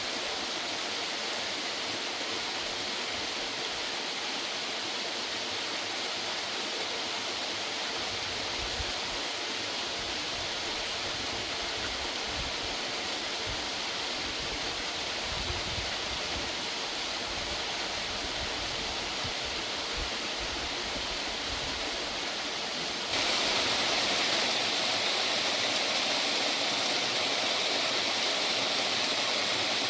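Waterfall rushing: a steady hiss of falling water that jumps abruptly louder and brighter about 23 seconds in.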